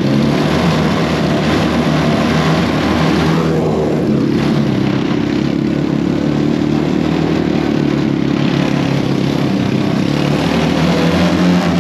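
Small engine of a kids' mini Jeep running steadily under throttle while it is driven, its pitch holding nearly level throughout.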